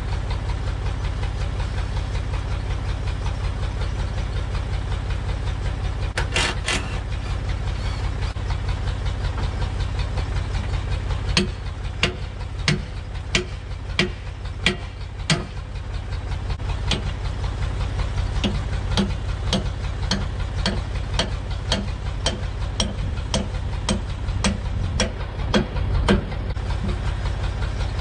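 Old Massey Ferguson backhoe's engine running steadily. From about eleven seconds in, sharp knocks repeat a little more than once a second over the drone.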